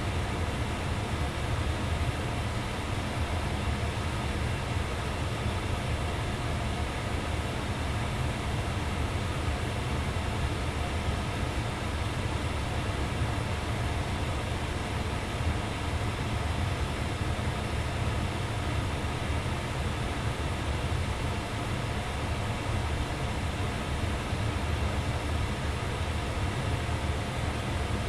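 2002 Ducane furnace's blower running steadily: an even, low hum with a hiss of moving air.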